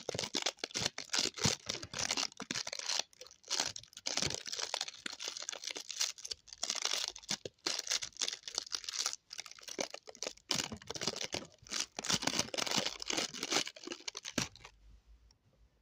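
Rapid, irregular crinkling and crackling noise made of dense clusters of small clicks. It stops abruptly about a second before the end.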